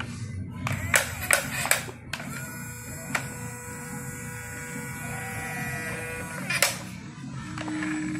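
Small electric motor of a toy RC dump truck buzzing as the tipper bed is lowered, with a thin steady whine from about two to six seconds in. A few sharp plastic clicks and knocks come through it.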